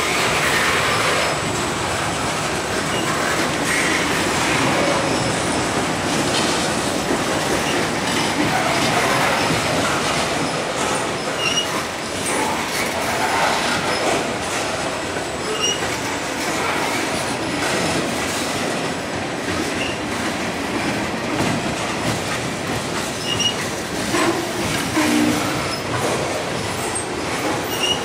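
Covered hopper cars of a freight train rolling across a steel girder bridge: a steady rumble of wheels on rail, with clicking over rail joints and brief high wheel squeals every few seconds.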